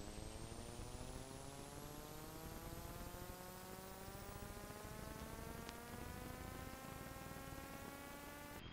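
Faint electronic tone with a stack of overtones, slowly gliding upward in pitch over a steady hiss, then dropping back abruptly near the end and starting to rise again.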